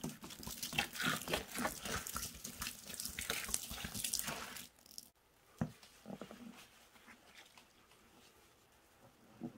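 Soapy cleaning solution pours from a bottle and splashes onto foam-covered grout sponges in a plastic tub, then stops suddenly almost five seconds in. After that a few faint squishes follow as a gloved hand presses a soaked sponge.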